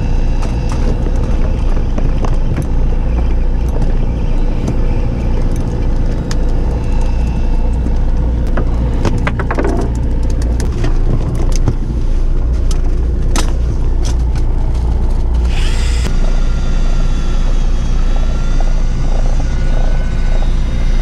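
Fishing boat's engine running with a steady low drone, with scattered sharp clicks and knocks. About three-quarters of the way through, a thin wavering whine joins in.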